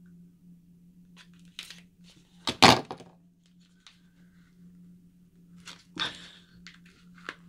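Product packaging being handled and opened by hand: scattered light clicks and rustles, with one loud crackle about two and a half seconds in.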